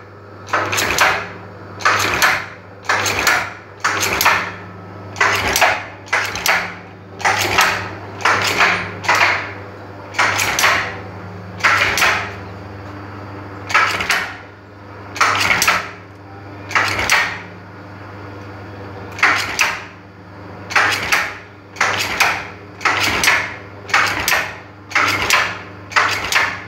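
Brush tufting machine inserting bristle tufts into a wooden brush block: a clattering metallic stroke about once a second, stopping briefly twice, over a steady motor hum.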